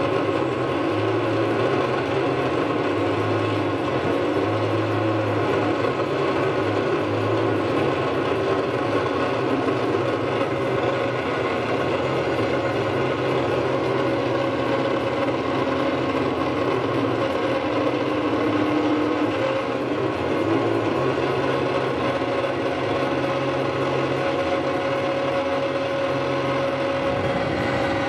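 Experimental drone from an electric guitar run through electronics: a dense, unbroken wash of many sustained tones, with a low hum that cuts in and out every second or two.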